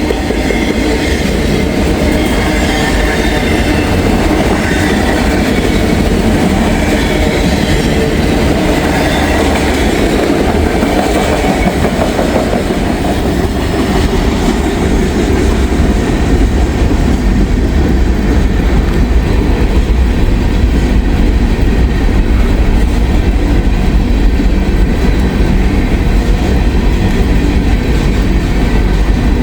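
Freight train rolling past close by: steel wheels clicking over the rail joints under a heavy, continuous rumble. Faint whining tones ride over it for the first dozen seconds or so, then fade, leaving a steadier, slightly louder rumble.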